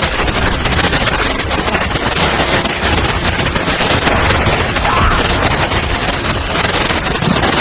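Blizzard wind rushing loudly and steadily, with a dense crackling texture.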